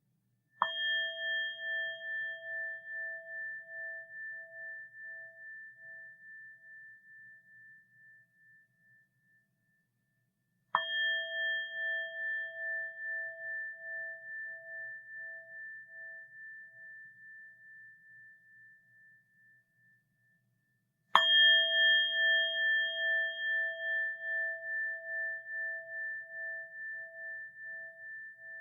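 A Buddhist rin (orin) bowl bell is struck three times, about ten seconds apart. Each strike rings out in a long, slowly fading tone that wavers in loudness about twice a second.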